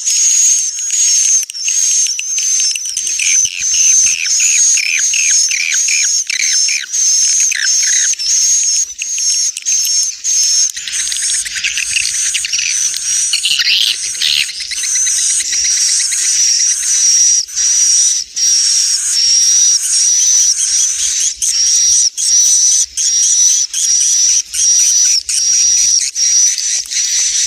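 Recorded swiftlet calls: a dense, high-pitched twittering chatter of rapid repeated chirps and clicks, the roosting ('inap') lure call played to draw swiftlets into a swiftlet house.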